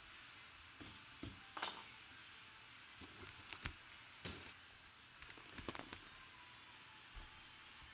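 Faint, scattered clicks and light knocks, a dozen or so short irregular taps with a few quick clusters, over a low steady hiss.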